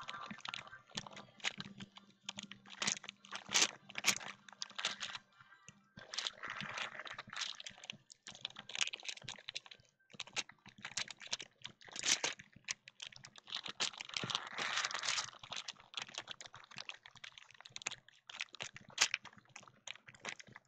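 Foil trading-card pack wrappers being torn open and crumpled by hand: a dense, uneven run of sharp crinkles and crackles in clusters.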